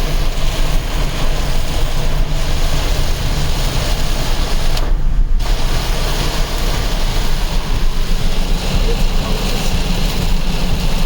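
Loud, steady rushing of storm wind and road noise from a car driving through a severe thunderstorm. The rush dips briefly about halfway through.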